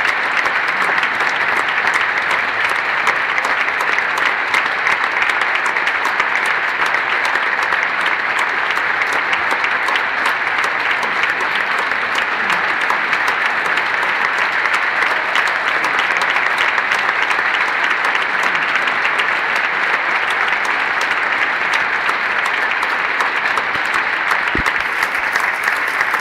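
Large audience applauding steadily: a dense, unbroken clatter of many hands clapping.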